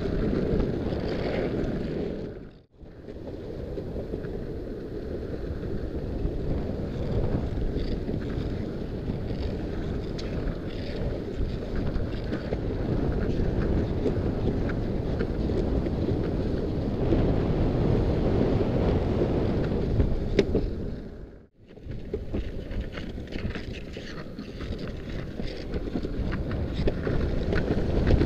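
Steady rush of wind buffeting the microphone while moving fast, over the rumble of longboard wheels rolling down an asphalt path. The sound cuts out briefly twice, once a few seconds in and once near the end.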